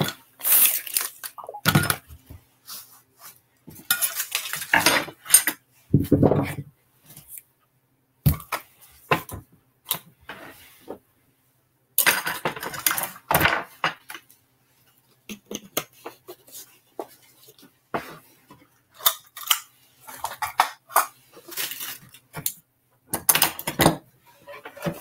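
Dishes, pots and cutlery clinking and knocking in irregular bursts as they are handled on a kitchen counter, with a few heavier knocks among them.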